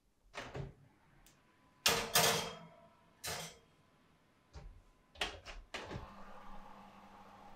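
Kitchen clatter: a series of knocks and clunks, like items being set down or a cupboard or drawer being handled, the loudest about two seconds in. About six seconds in, a steady low hum starts.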